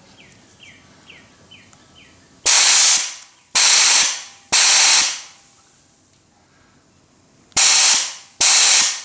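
Hand-held spot sandblaster firing 80-grit black blasting sand in five short bursts of hiss, about half a second each with a tapering tail, three in quick succession and then two more near the end. The blasts are cleaning the inside of drilled plug-weld holes in sheet steel, prepping them for welding.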